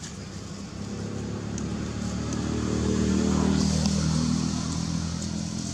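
A motor vehicle's engine passing by, growing louder to a peak about three and a half seconds in, then fading.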